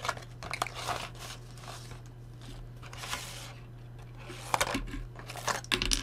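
Hands unpacking a small accessory box and its contents: plastic packaging rustles and crinkles, with a longer rustle partway through. Small items click and tap as they are set down, most of them near the end. A low steady hum runs underneath.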